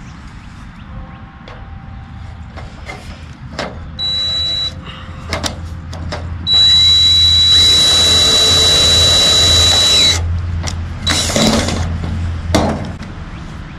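Cordless drill driving a screw through a hidden gutter hanger into an aluminum gutter. A short spin about four seconds in, then a longer steady run with a high whine lasting about three and a half seconds that stops abruptly, followed by a few clicks and knocks.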